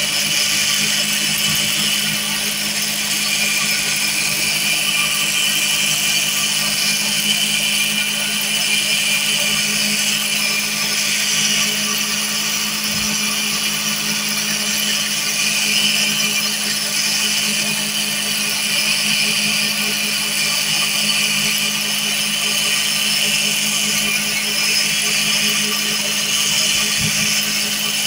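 Electric cotton candy machine running steadily, its motor spinning the cast-iron heating head with a constant hum and a hissing whir above it, as sugar floss is spun out and wound onto a stick.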